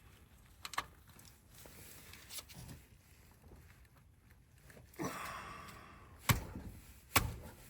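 Hand ratchet snugging up a car's oil drain plug: mostly quiet with a few faint clicks, a brief rustle about five seconds in, then two sharp clicks near the end.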